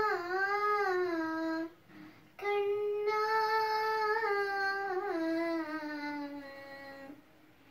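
A girl singing solo without accompaniment, in long held notes. One phrase ends with a short breath, then a second long phrase slowly drifts down in pitch and fades.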